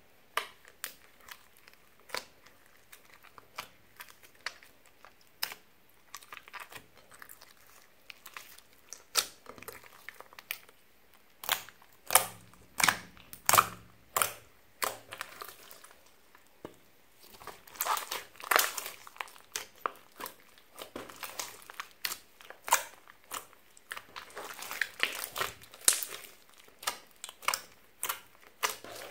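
Glossy slime being squished and kneaded by hand: many irregular wet clicks and pops as air pockets in the slime are pressed and burst, coming in clusters.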